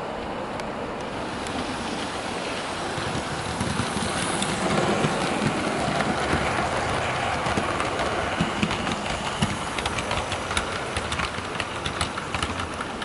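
Hornby Terrier 0-6-0T model locomotive hauling a rake of model coaches along the track, a steady rolling rumble that grows louder about four seconds in as the train passes close. Many sharp clicks from the wheels going over the rail joints follow, most of them near the end.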